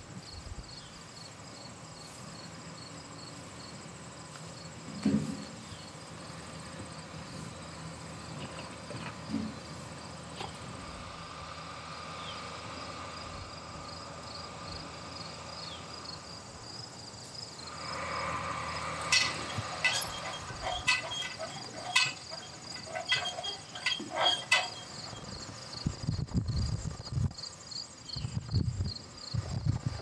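Crickets chirping steadily in an even, rapid pulse. In the second half a louder stretch begins, with a run of sharp clicks and knocks.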